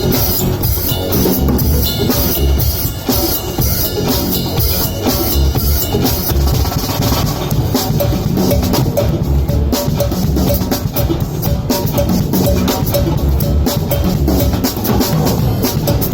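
Live band music played loud through a PA during a sound check, the drum kit out in front with a steady kick drum and snare.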